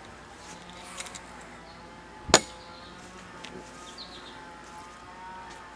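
Quiet background with one sharp click about two seconds in; a faint distant siren begins near the end.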